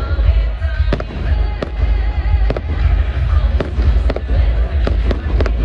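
Fireworks display: aerial shells bursting in quick succession, about a dozen sharp bangs over a steady low rumble.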